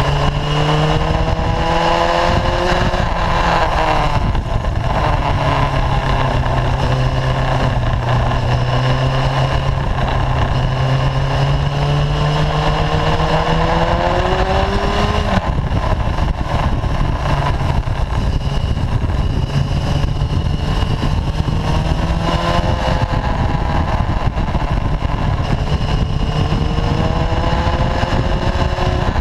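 Sport motorcycle engine heard from a camera mounted on the bike, its pitch rising and falling with the throttle through the bends and dropping sharply about halfway through, over a constant rush of wind on the microphone.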